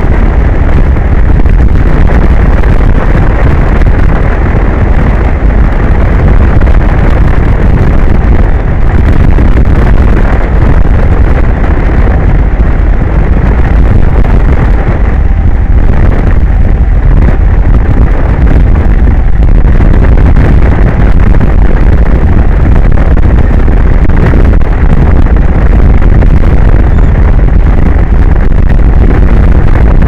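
Strong wind buffeting an outdoor microphone at sea: a loud, unbroken rumbling noise with no separate events.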